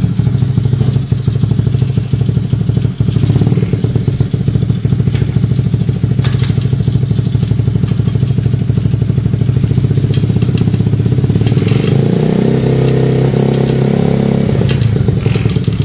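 A 1986 Honda Z50R minibike's small single-cylinder four-stroke engine running steadily, driving a snowblower track through the chain with some light clatter. About twelve seconds in it revs up for a couple of seconds, then drops back.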